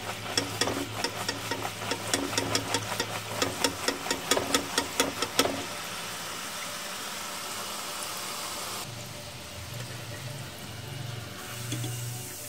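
Rose-cookie batter deep-frying on an iron mould in hot oil. It sizzles, with a quick, rhythmic crackle of about three pops a second for the first five or so seconds, then settles to a steadier, softer sizzle.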